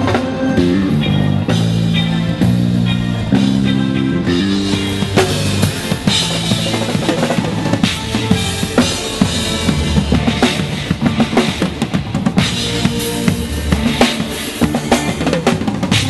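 Live band soundcheck: an electric bass plays a stepping line, clearest in the first few seconds. Then a full drum kit takes over, with kick drum, snare and cymbals in quick, busy playing.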